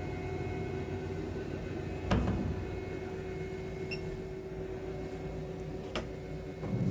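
Conformal coating machine running: a steady mechanical hum with a few held tones, a dull thump about two seconds in, a sharp click about six seconds in, and another soft thump near the end.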